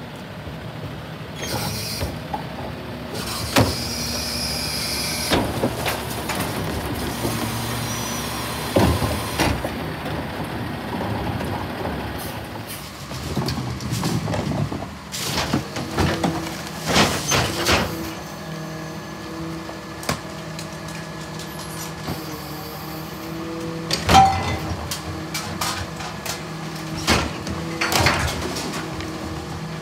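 Rear-loader garbage trucks working a collection route: diesel engines running with hydraulic packers, a hiss of air a few seconds in, and in the second half a steady hum broken by sharp bangs as trash carts are tipped into the hopper.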